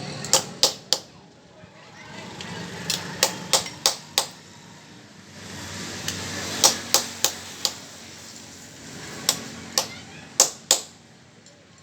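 Sharp taps or knocks in four short clusters of three to five, with faint voices underneath.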